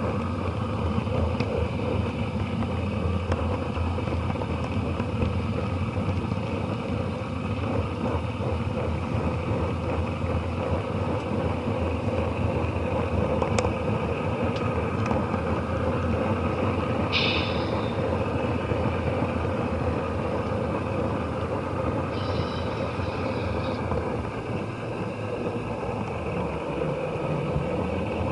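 Model train running along the layout track, heard from a camera riding in a car behind the locomotive: a steady rumble of wheels and drive, muffled by the camera's waterproof case. Two brief high squeaks come about two-thirds of the way through.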